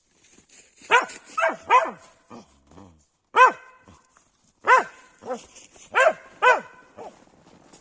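Hunting laika barking about ten times in short, sharp barks, with a pause of about a second after the first five.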